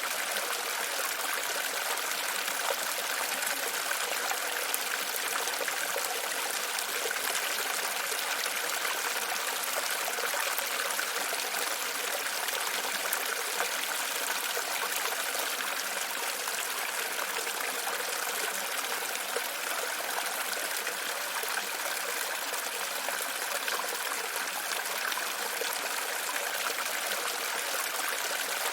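Running water, flowing steadily without a break.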